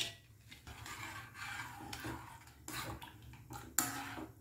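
A spoon stirring peanuts in salted water in a non-stick pan, with a few sharp clinks against the pan, the loudest near the end.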